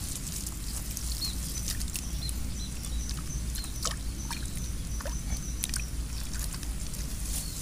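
Bare hands scooping and pressing wet mud and sloshing in a shallow muddy puddle: many small wet clicks and light splashes. The mud is being packed in to close an eel burrow.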